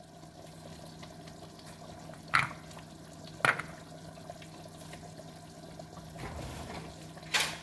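Kitchen clatter: three sharp clacks of things being handled or set down, two about a second apart and one near the end, over a steady low hum and faint hiss.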